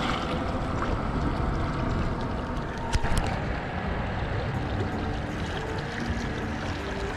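Wind buffeting the microphone over small waves lapping against shoreline rocks, a steady noisy wash, with two sharp clicks about three seconds in.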